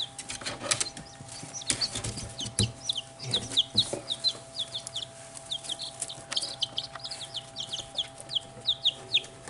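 Two-day-old chicks peeping continually: many short, high peeps that slide down in pitch, several a second. A few sharp knocks in the first three seconds.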